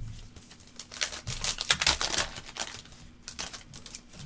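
A trading card pack's wrapper crinkling and tearing as the cards inside are handled. The sound is a quick run of rustles starting about a second in, with a few more scattered ones near the end.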